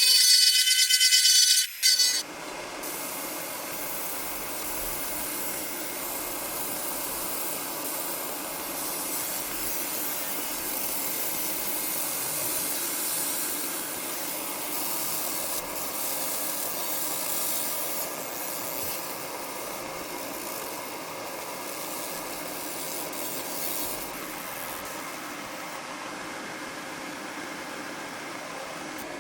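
Steady rasping hiss of a laser engraver stippling the polymer grip of an airsoft pistol frame. It starts about two seconds in, after a loud, choppy pitched sound cuts off.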